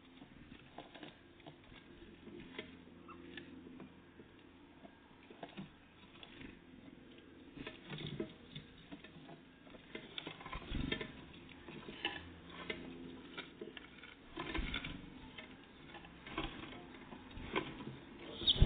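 Small birds, great tits and blue tits, feeding: irregular pecking and tapping clicks, busier in the second half, with a few louder knocks.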